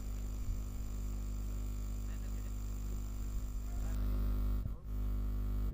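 Steady electrical mains hum and buzz from an open microphone or sound system, holding level and cutting off suddenly near the end.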